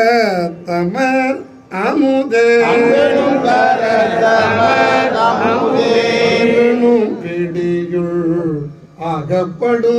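Men chanting a Tamil devotional hymn, a sung line of long held, wavering notes, read from a printed lyric sheet. It breaks off briefly between lines about one and a half and nine seconds in.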